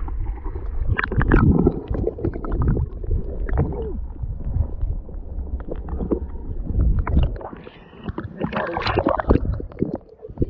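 Water sloshing and gurgling around a GoPro held underwater, heard muffled through its waterproof housing, with irregular knocks and splashes.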